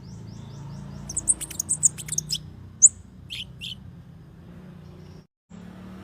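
Small songbird singing a rapid chattering song: a run of quick high chirps, then a burst of loud sharp notes about a second in, one piercing high note near three seconds and two lower notes just after. A steady low hum runs underneath, and the sound cuts out briefly near the end.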